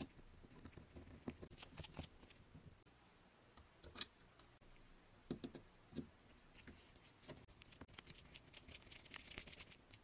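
Screwdriver driving a screw down into a wooden base: faint scattered clicks and small knocks as the blade turns in the screw head, with a quick run of fine ticks near the end.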